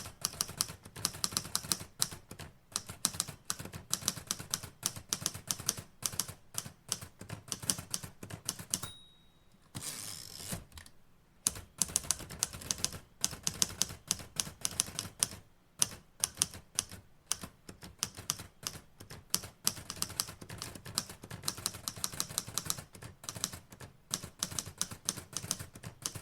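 Typewriter keys clacking in quick irregular runs of typing, with a short pause and a brief high ring about nine seconds in.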